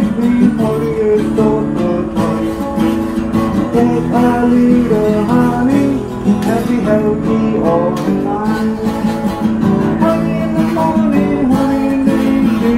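Acoustic guitar being strummed, playing a song's accompaniment.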